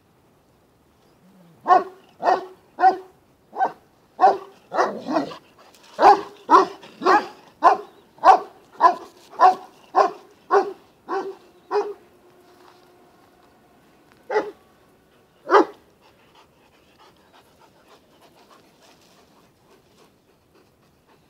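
Romanian Bucovina Shepherd dog barking: a run of about twenty barks, roughly two a second, then two lone barks a few seconds later.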